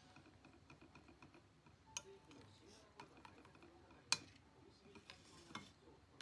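A spoon stirring a milky mixture in a ceramic bowl: faint scraping with a handful of sharp clinks against the bowl, the loudest about four seconds in, one about two seconds in ringing briefly.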